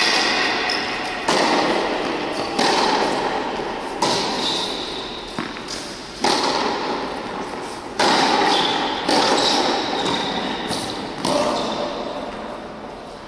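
Tennis rally on an indoor hard court: sharp racket strikes and ball bounces every one to two seconds, each ringing out in the long echo of a large hall.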